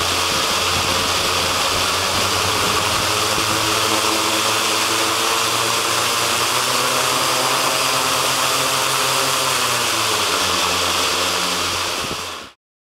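Xaircraft hexacopter's six brushless electric motors running at a steady speed during a frame vibration test: a steady hum with a broad whirring hiss over it, cutting off suddenly near the end.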